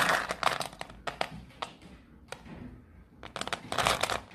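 A dog crunching dry kibble, with clicks and clatter of the pieces, in two bouts: one at the start and another about three seconds in.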